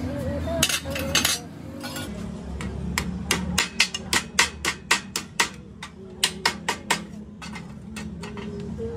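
Hand hammer striking a welded square steel tube frame lying on a steel plate table. After a couple of scattered knocks, it settles into a rapid run of light, ringing metal-on-metal strikes at about four a second.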